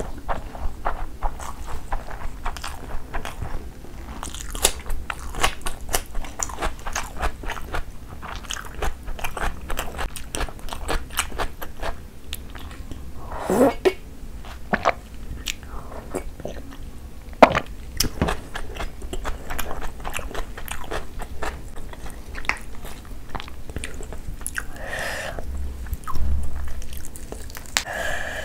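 Close-miked chewing of mouthfuls of rice and curry eaten by hand: wet smacking with many quick, sharp mouth clicks. About halfway through there is a slurping sip from a glass.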